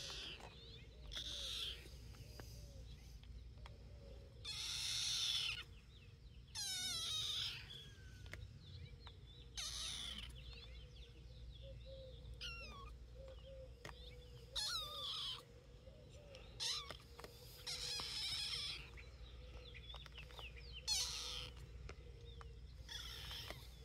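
Tabby kitten meowing repeatedly while being petted: about a dozen short, high calls, several falling in pitch.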